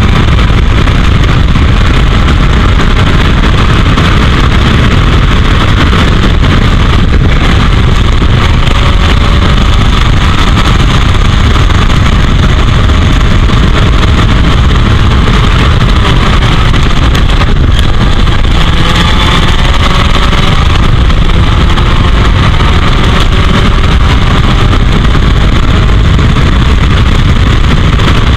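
Heavy wind buffeting on the microphone of an open-cockpit 1984 Royale S2 Sports 2000 racing car at speed, with its Ford 2.0-litre four-cylinder engine rising and falling in pitch underneath as it runs through the gears.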